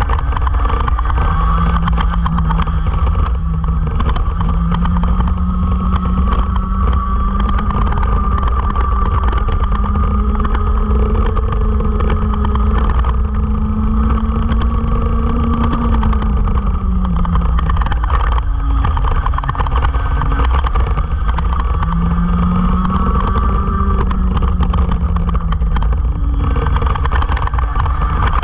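Racing go-kart engine heard onboard at speed, its pitch climbing steadily down the straight, falling away a little past halfway as the kart slows for a corner, then climbing again, with a shorter dip near the end. A loud low rumble of wind on the camera runs underneath.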